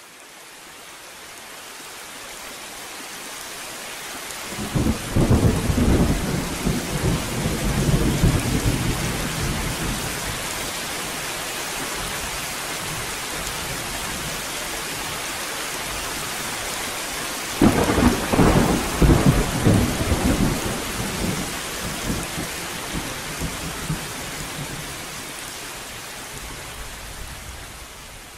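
Steady heavy rain with two rolls of thunder, one about five seconds in and another about eighteen seconds in. The rain swells in at the start and fades away near the end.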